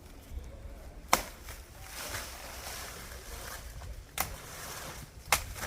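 Faint outdoor background noise with three sharp knocks or clicks, about a second in, about four seconds in and near the end.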